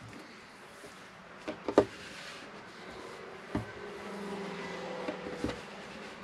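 Hands working a braided Dyneema rope on a wooden table, bunching the braid to feed a buried tail along inside it: a low rustling of the rope with a few sharp knocks, the loudest near two seconds in. A low steady hum comes in about four seconds in.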